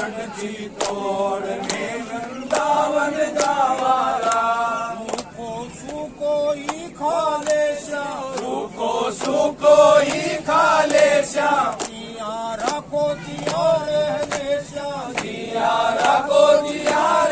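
A group of men singing a Hindu devotional chant together, kept in time by steady hand clapping a little more than once a second.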